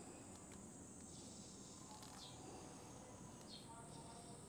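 Near silence: faint outdoor background with a steady high-pitched hiss and a few faint short chirps spaced over a second apart.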